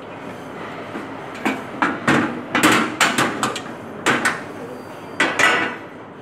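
Irregular metal knocks and clatters, about a dozen over a few seconds, as a long flat metal plate is handled and set down into the metal frame of an electric tile-cutting table.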